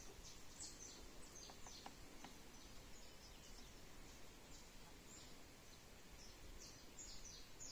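Near silence, with faint short high bird chirps scattered throughout and a few soft ticks around two seconds in.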